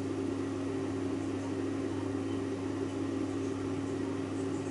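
Andrew James halogen oven's fan running, a steady mechanical hum.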